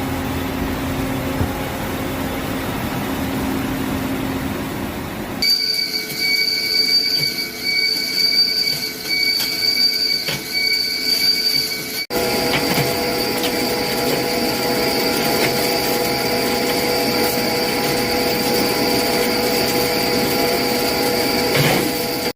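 CNC lathe machining metal: a steady machine hum, then from about five seconds in a high steady whine with uneven loudness, changing abruptly about twelve seconds in to a steadier, fuller running noise with a high tone over it.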